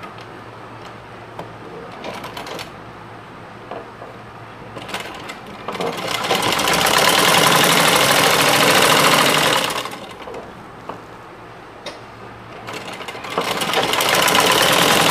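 Domestic sewing machine stitching in two runs of about four seconds each, the first starting about six seconds in and the second near the end, with light fabric handling in between. It is sewing a gathered elastic waistband, the fabric pulled taut as it feeds.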